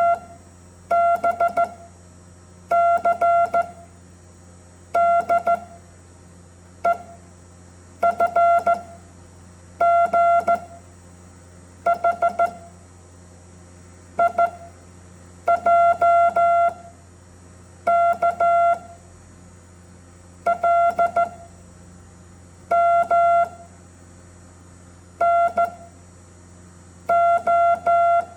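Morse code sent as a single steady beep tone, one letter about every two seconds, running through the alphabet from A to O in order: a lone short beep for E, two short for I, two long for M. Each beep starts with a faint click, over a steady low background hum.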